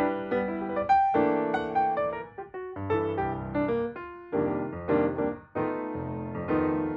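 Background music: a piano playing a gentle melody over chords, the notes struck and left to ring.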